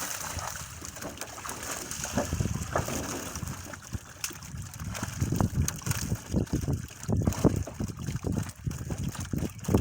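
Water splashing and sloshing in irregular bursts, getting busier and louder about halfway through.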